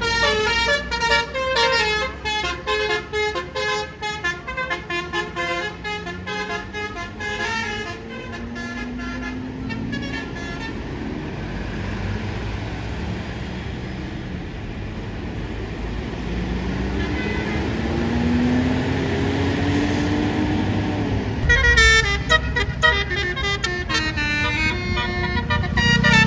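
Bus Basuri telolet air horns playing a fast melody of quickly changing notes, which stops about eight seconds in. A bus engine then rises in pitch twice as it accelerates, and another horn melody starts in the last few seconds.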